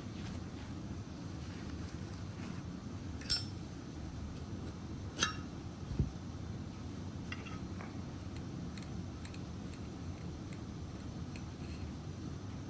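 Brass Zippo lighter being handled: two sharp, ringing metal clinks about three and five seconds in, a dull knock a second later, then scattered light ticks and clicks, over a steady low hum.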